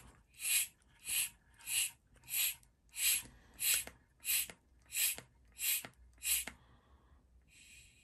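Mityvac hand vacuum pump being squeezed about ten times in a steady rhythm, each stroke a short hiss of air. It is drawing vacuum on a two-stroke chainsaw engine's crankcase for a seal leak test, and the strokes stop about six and a half seconds in.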